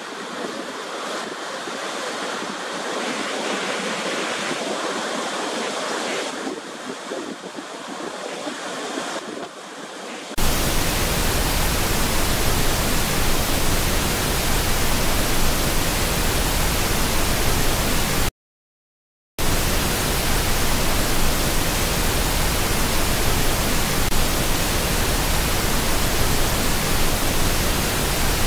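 Rushing water and spray at the foot of Niagara Falls, uneven and surging, for about ten seconds. Then an abrupt switch to a louder, perfectly even hiss with no change in it, which cuts to silence for about a second and comes back.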